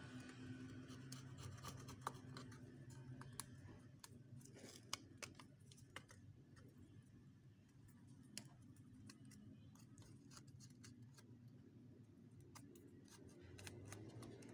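Faint, scattered scratching and small clicks of metal tweezers scraping a phone's display frame, picking off leftover LCD adhesive and bits of broken screen glass.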